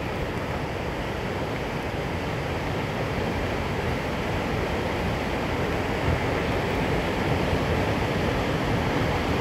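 River rapids rushing around an inflatable raft: a steady wash of white water that grows slowly louder as the raft nears the rapids.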